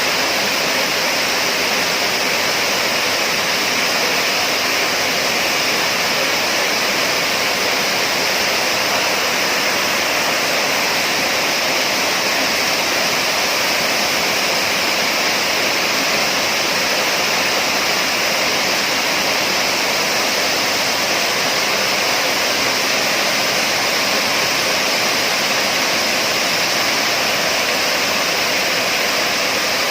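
A waterfall's steady, loud rush of falling water.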